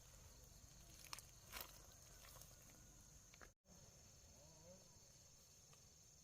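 Near silence: faint, steady high-pitched insect chirring in the night field, with a couple of soft clicks or rustles in the first two seconds.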